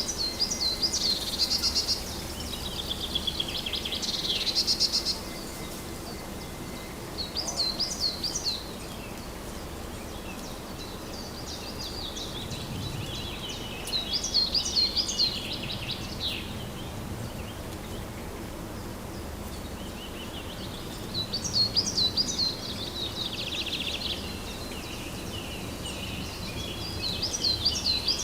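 Songbirds singing: short, high, trilling phrases repeated every few seconds over a steady background hush.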